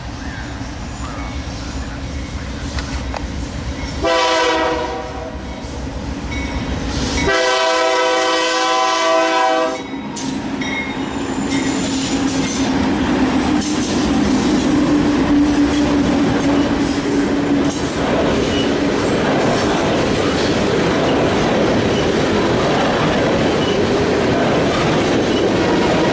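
Three BNSF diesel locomotives approach, rumbling, and sound a multi-chime air horn twice: a short blast about four seconds in, then a longer one lasting a couple of seconds. The units and their train then roll past loudly, with steady wheel noise, clickety-clack over the rail joints and some wheel squeal.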